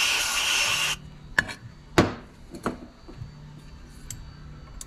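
Aerosol can of tapping fluid sprayed through its straw into a valve guide for about a second, followed by a few light metallic clicks and one sharp ringing clink about two seconds in as the tool is handled against the aluminium cylinder head.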